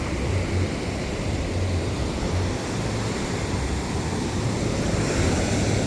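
Ocean surf washing on the beach, a steady rush, with wind buffeting the microphone in uneven low rumbles.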